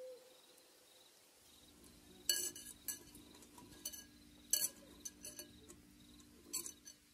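About half a dozen sharp clinks of pebbles knocking against a glass bowl as artificial plants are pushed into the gravel inside it, with faint handling noise between.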